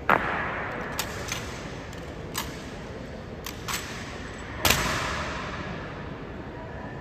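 Honor guard's drill strikes on the memorial hall's stone floor: a loud crack right at the start and another about four and a half seconds later, with lighter taps between. Each one rings on with a long echo.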